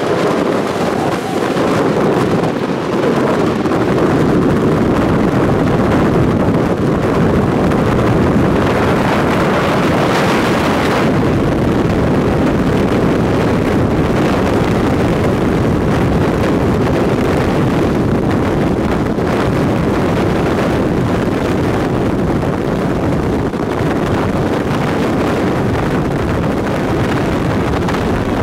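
Strong wind rushing and buffeting on the microphone, a loud, steady roar with no break.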